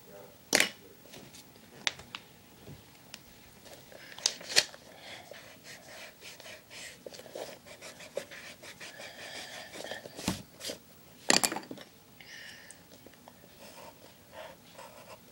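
Pencil drawing on paper, with light scratchy strokes and rubbing from the eraser, broken by scattered sharp clicks and knocks from the pencil and paper handling.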